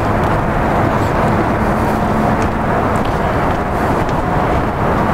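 Steady, loud rushing noise of wind on the camera microphone, heaviest in the low end, with no clear events.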